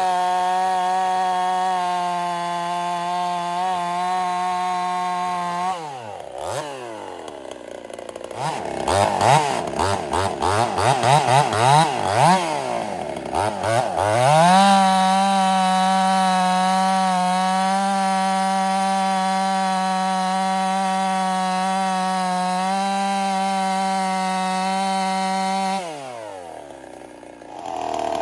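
Ported Husqvarna 55 two-stroke chainsaw running at high, steady revs in cuts. The revs drop about six seconds in, then rise and fall quickly several times as the throttle is blipped. It returns to a steady high note, drops again near the end and picks back up.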